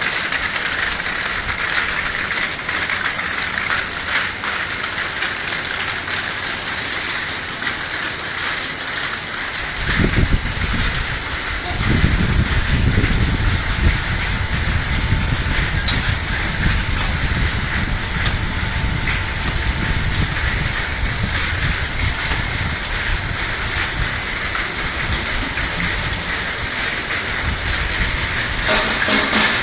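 External vial washing machine for 50 ml vials running, its jets giving a steady, loud hiss. A low rumble joins the hiss about ten seconds in.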